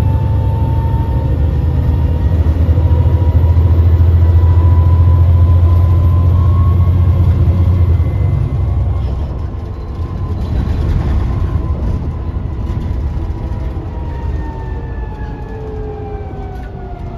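Articulated city bus running, heard from inside the passenger cabin. A heavy low drone holds for the first half and then drops away. A thin drive whine rises slightly, then falls in pitch near the end as the bus slows.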